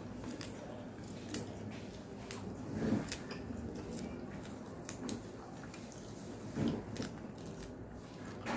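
Someone eating lobster by hand: irregular small clicks and crunches from the shell being worked apart, with wet chewing and mouth sounds, two slightly louder ones about three and six and a half seconds in.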